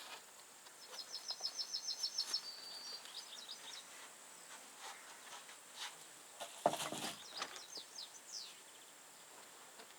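A small songbird singing faintly: a fast trill of repeated high notes about a second in, then more chirps and a few falling notes near the end. A single short knock comes about two-thirds of the way through.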